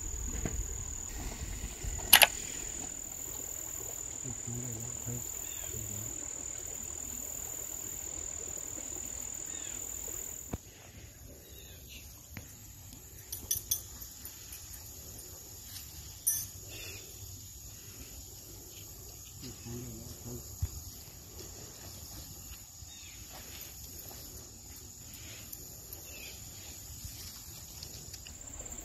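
Insects chirring outdoors in one steady high-pitched trill that is louder for the first ten seconds. Two sharp clicks come in the first few seconds, and a few fainter clicks and knocks follow later.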